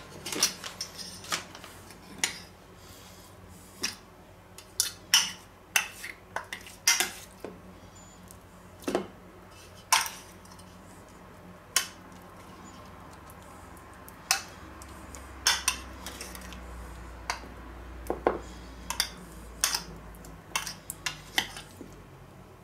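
Metal spoon clinking and scraping against a stainless steel bowl while stirring and scooping a marinade, in short, irregular clinks about once or twice a second.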